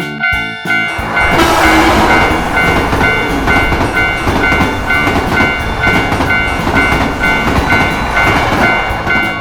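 Japanese level-crossing warning bell clanging in a steady 'kan-kan' about twice a second while a train passes through the crossing: a loud rushing rumble of wheels and carriages that starts about a second in and runs until near the end.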